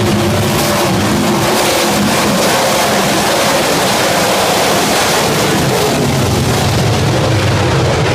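A pack of 410 sprint cars racing past on a dirt oval, their 410-cubic-inch V8s running hard together in a loud, steady wash of engine noise.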